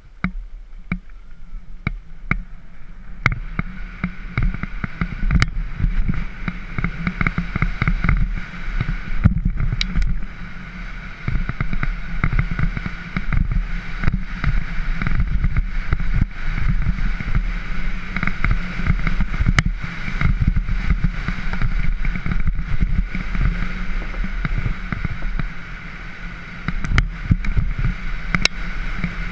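Mountain bike rolling fast down a gravel trail: tyres crunching over the gravel, with a constant clatter of rattles and knocks from the bike and camera over the bumps.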